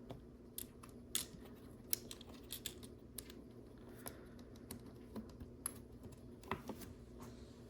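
Small plastic LEGO pieces clicking and clattering as they are handled and sorted through in search of a white stud, a scatter of light, irregular clicks.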